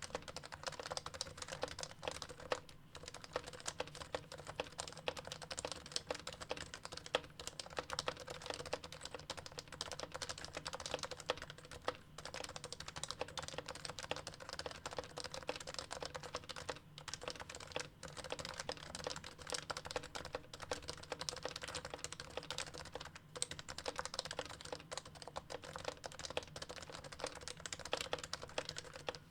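Continuous fast typing on a keyboard, a dense run of keystroke clacks broken by a few short pauses.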